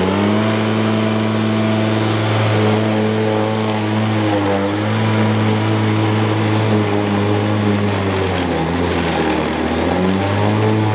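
DeWalt FlexVolt cordless push mower running under load, its electric motor and blade making a steady whirring hum. The pitch sags briefly about halfway through and again near the end, then picks back up: the motor bogging down in thick, wet, dewy grass.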